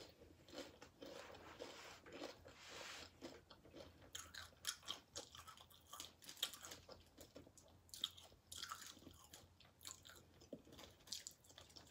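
A person chewing loaded nachos, with many short, faint crunches of tortilla chips.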